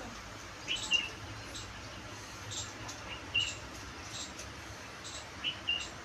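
Small birds chirping: short, high chirps every second or so, some as quick upward-flicking pairs, the loudest about a second in and again a little past three seconds.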